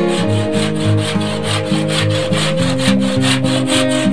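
Handsaw cutting through wood in quick, even strokes, about four a second, with background guitar music under it.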